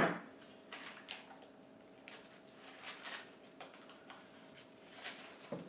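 Faint, scattered rustles and crinkles of parchment paper being peeled off a slab of marshmallow fudge, over a faint steady hum.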